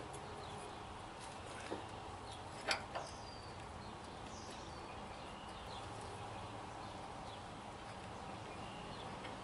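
A few short metal clicks about two to three seconds in, from a small wrench working a grease fitting loose on a truck's leaf spring shackle pin. Birds chirp faintly in the background.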